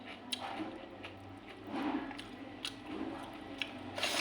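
Close-miked chewing: wet, squishy mouth sounds and lip smacks with many small clicks as a person eats a rice meal, with a louder burst of clicks about four seconds in.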